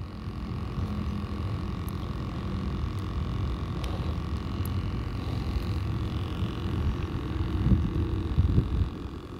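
Steady low rumble of outdoor background noise with close handling noise on the microphone as hands rig a jig head and bait on the fishing line, and a few louder rustles and knocks near the end as a hand reaches into the tackle bag.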